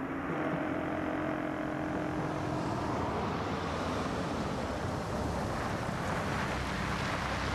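Jeep Wrangler driving toward the camera, its engine and tyre noise growing fuller as it approaches.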